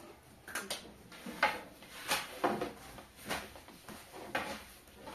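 A series of short knocks and scrapes at uneven intervals, roughly one every half second to second, as of things being handled or set down.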